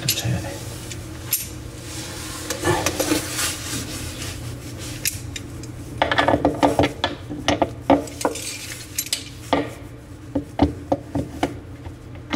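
Metal clicking and scraping as locking pliers grip and work the threaded metal shank of a washbasin mixing faucet, loosening the old tap for removal. The clicks come thick and fast from about six seconds in, then thin out.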